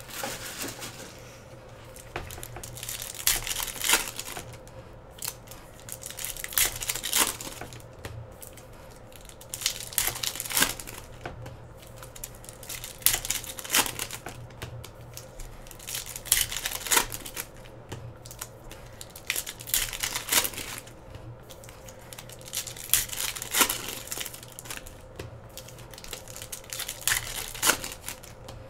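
Trading-card pack wrappers being torn open and crinkled, in irregular bursts of rustling and tearing every second or two.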